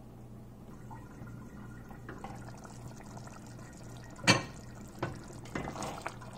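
Curry gravy simmering in a glass-ceramic casserole, under a steady low hum. A glass lid is set down on the stovetop with one sharp clunk a little after four seconds in. Then a silicone spatula stirs and scrapes through the gravy.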